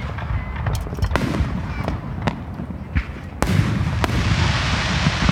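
Aerial fireworks shells bursting: a string of sharp bangs at irregular intervals over a low rumble, with a steady hiss coming in about three and a half seconds in.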